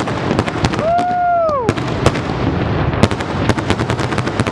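Finale of a large aerial fireworks show: big shells bursting in quick succession, many sharp bangs overlapping over a continuous rumble. A person shouts "woo" about a second in.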